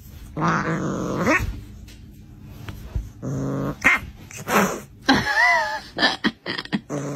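A cat calling in several short bursts, with growling sounds and a wavering meow about five seconds in.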